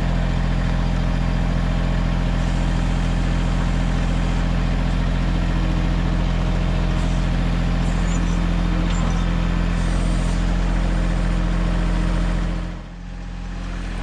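Mahindra 1626 compact tractor's diesel engine running steadily as the backhoe is worked. The sound dips sharply near the end.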